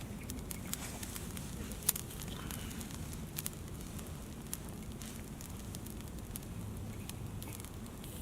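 Campfire crackling in a fire pit: irregular sharp pops and snaps, the loudest about two seconds in, over a steady low rumble.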